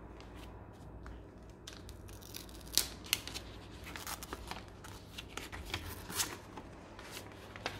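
A stiff paper invitation wrap being unfolded and handled by hand: scattered crisp rustles and sharp paper crackles, the loudest about three seconds in and again just after six seconds.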